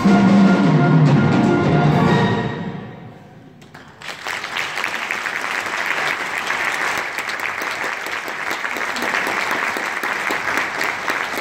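School concert band of woodwinds, brass and percussion holding its final chord, which dies away about three seconds in. A moment later the audience breaks into steady applause.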